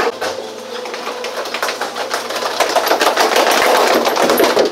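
Quick, irregular clatter of many footsteps as a group runs across a hard floor, with a low steady hum through the first half.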